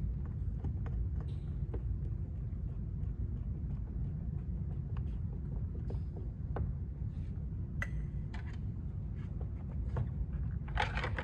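Steady low background hum with scattered light clicks and taps as a screwdriver drives a bolt and plastic door trim is handled at a car door's armrest. A denser cluster of louder rattles and clicks comes near the end.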